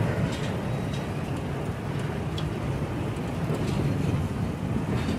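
Freight train cars rolling past at speed: a steady low rumble of steel wheels on rail, with a few faint clicks.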